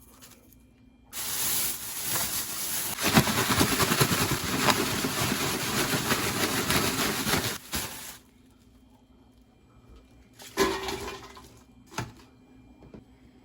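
Kitchen tap running water into the sink for about seven seconds, starting and stopping abruptly, followed by a brief splash or clatter and a single click.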